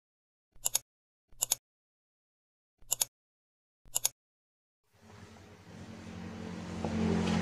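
Four brief clusters of quick clicks and taps, about a second apart, then from about five seconds in a steady motor-like hum with a hiss that grows louder.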